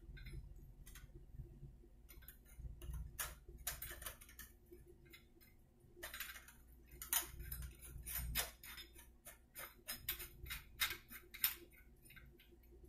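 Chrome flushometer tube's coupling nut being turned by hand onto the toilet spud: irregular small metallic clicks and ticks, coming thicker and louder in the second half.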